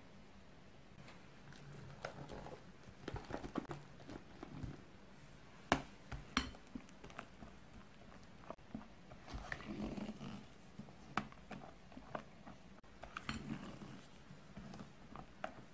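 Silicone spatula folding chiffon yolk batter into whipped meringue in a glass bowl: soft wet squelching and scraping, with a few sharp clicks of the spatula against the glass.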